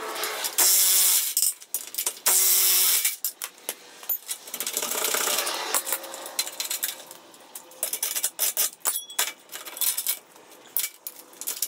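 A cordless power driver runs in two short bursts, then a wrench and steel trailer-coupler parts clink and knock many times as the old trailer coupler's bolts are worked loose.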